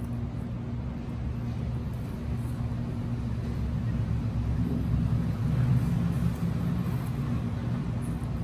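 A steady low machine hum.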